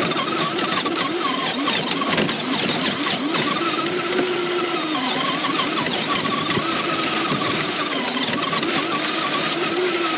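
Motor and drivetrain of a Traxxas radio-controlled car whining as it drives, heard from on board the car, the pitch rising and falling again and again with the throttle over a steady rush of noise.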